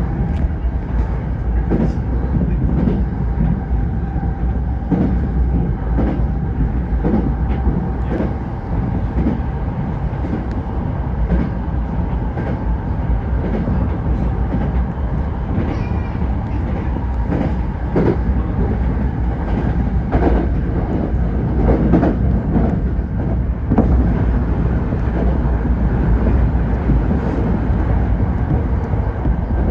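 Tokyo Metro 05 series electric train running at speed: a steady rumble of wheels on rail with a faint whine, broken by clicks at uneven intervals as the wheels cross rail joints.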